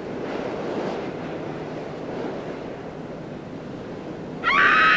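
Sound design of an animated title ident: a rushing, wind-like whoosh that swells in the first second and then carries on more softly. Near the end a loud, shrill cry like a scream breaks in suddenly.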